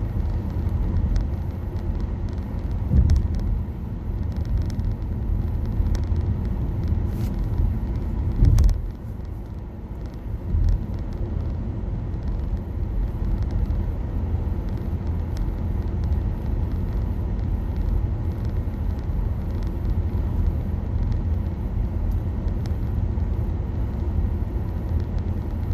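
Road and tyre noise heard inside the cabin of a moving Nissan Leaf electric car, a steady low rumble with no engine sound. A couple of louder bumps stand out about three seconds in and again near nine seconds.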